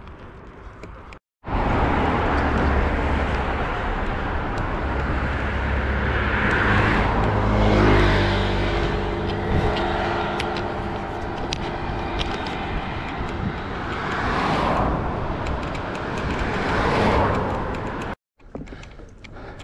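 Wind rushing over the microphone of a moving bicycle, with motor vehicles passing on the roadway beside it: one swells and fades about halfway through, another near the end. The sound cuts in abruptly just after the start and cuts off abruptly near the end.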